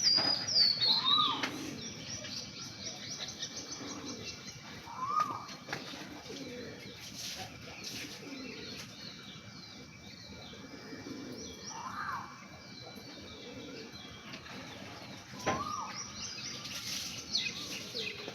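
Birds chirping and twittering, with short calls repeating every few seconds and a few sudden flaps. The chirping is busiest at the start and again near the end.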